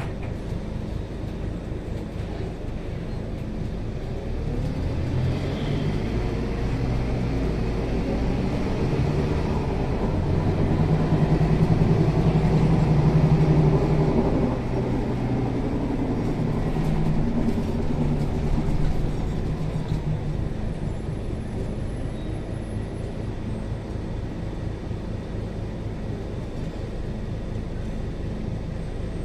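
Scania K360 bus's diesel engine running under load, its pitch and loudness climbing to a peak about halfway through, then dropping back suddenly and running on steadily.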